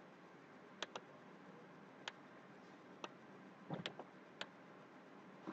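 Computer mouse clicking: about six separate short clicks, two close together about a second in, over faint room hiss.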